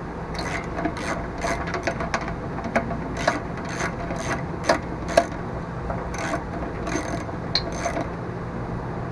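Hand ratchet clicking in short, uneven strokes, about two clicks a second, as a 7/16 bolt is run in and tightened down.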